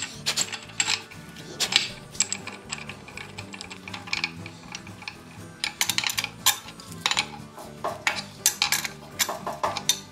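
Background music with scattered metal clicks and clinks of a wrench working the bolts of a cast-iron wagon-wheel hub.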